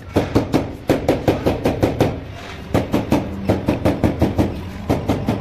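Quick runs of sharp knocks, about four or five a second, as a marble stair tread is tapped down into its wet mortar bed to level and seat it, with a short break just past two seconds in.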